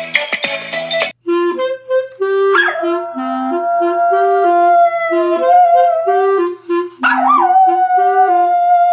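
A dog howling along to a melody played on an instrument. Its two long howls each swoop down and then hold, wavering, over the stepped tune. A moment of other music cuts off about a second in.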